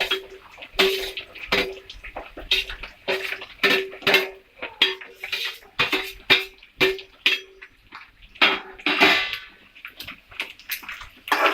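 Metal spatula scraping and knocking against a pan, stirring veg meat chunks frying in oil, with several irregular strokes a second. Many strokes carry a brief metallic ring.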